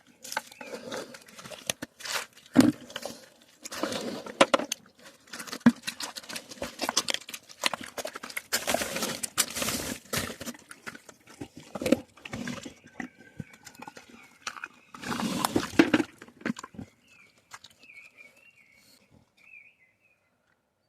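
Pigs rooting through straw bedding: irregular rustling and grunting. It dies away about seventeen seconds in, leaving only faint high chirps.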